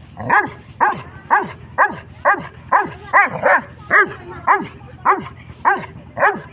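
Six-month-old St. Bernard puppy barking repeatedly, about two short barks a second in a steady rhythm.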